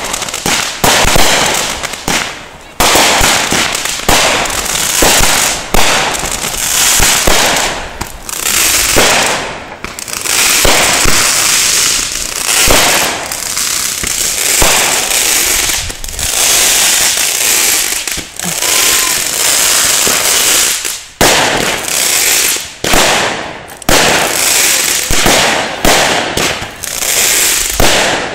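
Fireworks going off one after another: bangs and crackling follow in quick succession, with only brief lulls, one of them about 21 seconds in.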